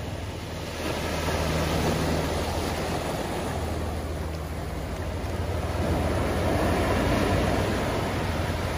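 Ocean surf breaking and washing over a rocky shoreline, swelling louder about a second in and again near the end, with wind rumbling on the microphone.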